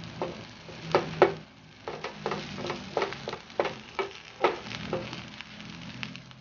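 A vegetable patty frying in butter in a nonstick pan, with a steady sizzle. A slotted spatula taps and presses on it about a dozen times, the loudest two taps about a second in.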